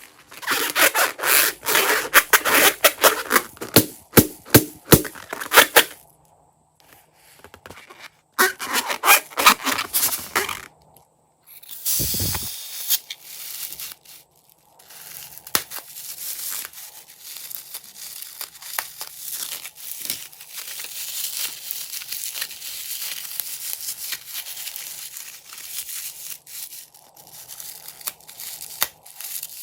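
Crunchy slime being squeezed and worked by hand, crackling in dense bursts through the first ten seconds. A short dull thud comes about twelve seconds in, then a softer, steadier rubbing with small clicks.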